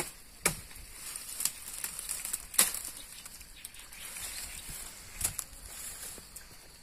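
A hand tool chopping into earth and roots: four scattered knocks, the loudest about two and a half seconds in, with soft rustling of brush in between.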